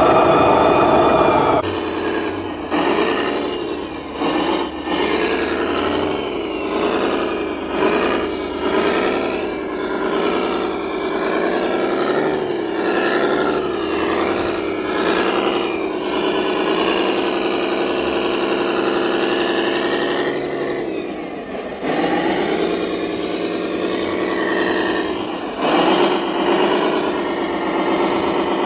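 Radio-controlled scale trucks driving, their motor sound rising and falling in pitch with the throttle. The sound changes abruptly about a second and a half in.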